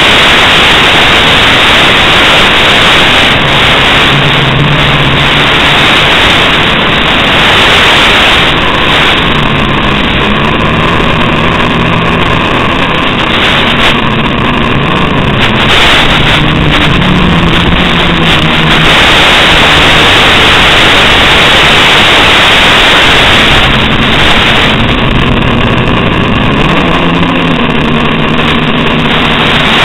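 Loud, steady hiss of static from an analog FPV video receiver. A low buzzing tone that shifts in pitch comes and goes through the middle and again near the end.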